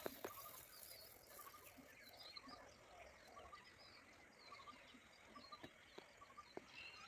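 Faint birds chirping and calling in many short high chirps, with two light ticks at the very start as rice grains are tipped onto the ground.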